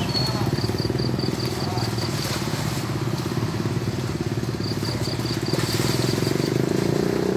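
A small engine idling steadily nearby, with a faint, rapid, high-pitched beeping that comes and goes twice.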